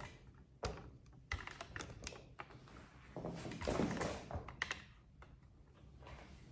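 Irregular light taps and clicks, with a longer rustling rub about three and a half seconds in: handling sounds of a massage being worked by hand.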